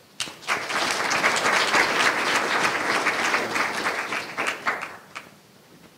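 Audience applauding: dense clapping that starts right away, thins out about four and a half seconds in and ends with a few last claps about five seconds in.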